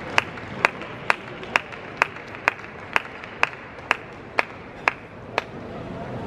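A table tennis ball bounced over and over, a dozen light, sharp clicks at a steady two a second that stop near the end, over fading applause and crowd murmur.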